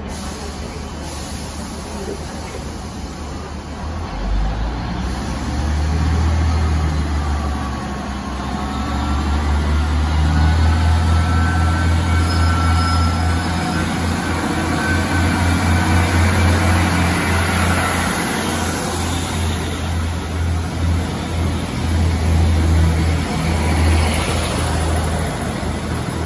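A pair of Class 153 diesel railcars powering away from a standing start with their underfloor Cummins diesel engines, a low throbbing drone that swells about four seconds in and stays loud as the train passes. A faint rising whine sits over it in the middle.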